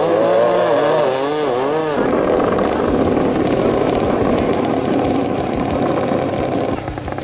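Racing long-tail speedboat's small exposed engine running flat out. For the first two seconds its pitch wavers quickly up and down, then it holds a steady high note and drops lower near the end.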